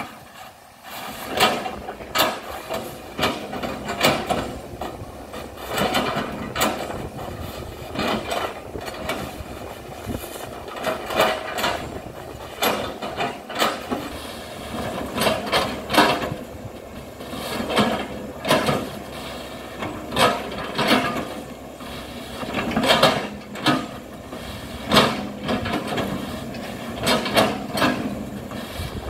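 Hitachi excavator running under load while chipping oil palm, its engine and hydraulics humming steadily under a string of irregular sharp knocks and cracks from the bucket working the palm wood, one every second or two.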